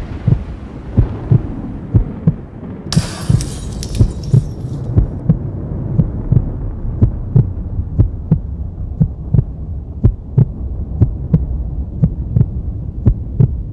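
Outro soundtrack: a steady low pulse of thumps, about three a second, over a low hum, with a burst of hiss about three seconds in.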